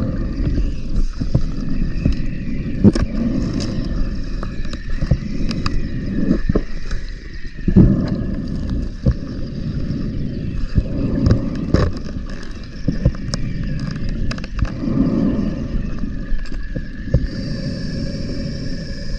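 Underwater sound of a scuba diver breathing through a regulator: gushes of exhaled bubbles every several seconds over a steady low wash of water noise, with scattered clicks and knocks from dive gear against the camera housing or rock.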